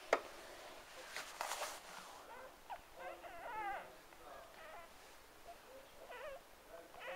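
Newborn cocker spaniel puppies whimpering and squeaking in short, wavering cries, with a longer warbling cry about three seconds in. A few clicks and rustles come a second or so in.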